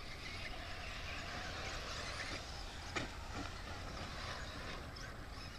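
Radio-controlled short course trucks running on a dirt track: a steady hiss of motors and tyres over a low rumble, with one sharp click about three seconds in.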